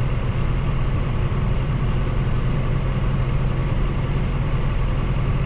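John Deere 6130R tractor's diesel engine running steadily, a constant low drone.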